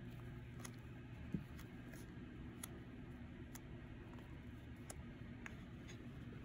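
Faint handling noises of small items: scattered light ticks and clicks, with a soft knock about a second and a half in, over a low steady room hum.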